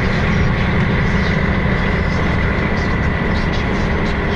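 Steady engine and road noise heard from inside the cab of a moving vehicle, a dense low rumble with a steady high whine above it.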